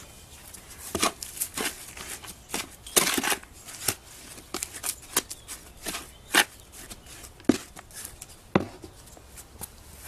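Metal hand trowel stirring dry Portland cement and sand in a plastic tub: irregular gritty scrapes and clicks, with a longer scrape about three seconds in.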